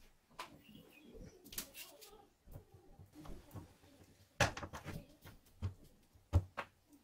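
Handling sounds on a wooden workbench: light taps and clicks, then sharper knocks as a leaf-spring steel knife tang is set down onto a pinned wooden handle scale and pressed into place. The loudest knocks come about four and a half and six and a half seconds in.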